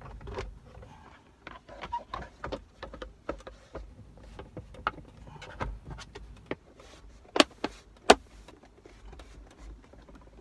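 Hard plastic armrest lid cover being handled and pressed into place on the console lid, giving many light knocks and clicks, with two loud sharp clicks less than a second apart about seven seconds in.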